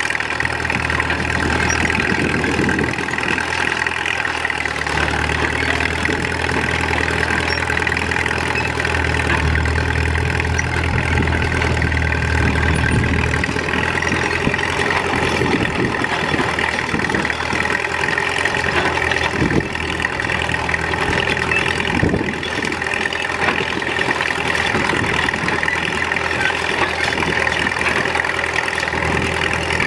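1941 Caterpillar D2 crawler's four-cylinder D3400 diesel running steadily under load as it pulls a two-bottom moldboard plow, with a heavier low rumble from about five to thirteen seconds in.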